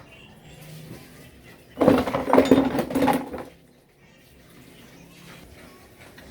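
Metal tools and parts clanking and scraping together during motorcycle repair work, loudest in one stretch of rattling, ringing clatter lasting under two seconds, about two seconds in.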